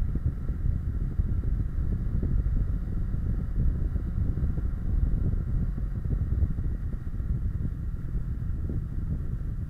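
Kawasaki Versys 650 motorcycle at road speed, heard from a bike-mounted camera: a steady low wind rumble on the microphone, with the parallel-twin engine running underneath.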